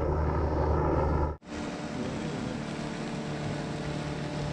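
Boat motor running steadily, a low hum with higher droning tones above it. It breaks off abruptly about a second and a half in, then carries on more quietly.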